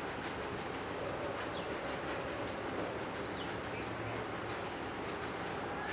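Steady high-pitched insect trill, with a few short bird chirps now and then over a general outdoor hum.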